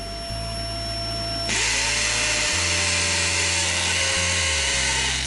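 Electric drill boring into a brick wall, starting about a second and a half in and running steadily for about four seconds, over a vacuum cleaner running throughout to suck up the dust.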